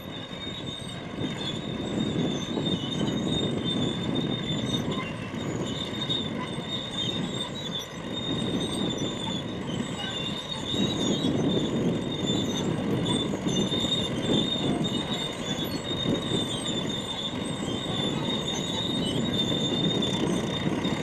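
Spitfire's Rolls-Royce Merlin V12 engine running during an aerobatic display, a rough, fluctuating noise that swells about two seconds in and again about halfway through as the aircraft manoeuvres.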